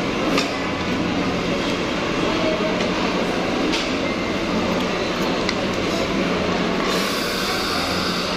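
Steady fast-food restaurant background din with a low hum, broken by a few light clinks of a spoon and fork against a plate; a hiss rises near the end.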